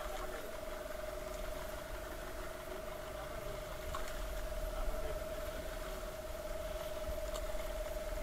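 Small fishing boat's engine idling with a steady high whine, over a low wind rumble on the microphone, with a couple of faint knocks.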